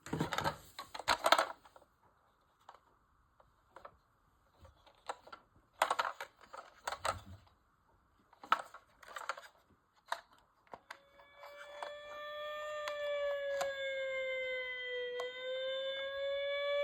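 Clicks and knocks of a plastic toy fire truck being handled, then about two-thirds of the way through its electronic siren sound starts: a steady tone whose pitch slowly sags and rises again.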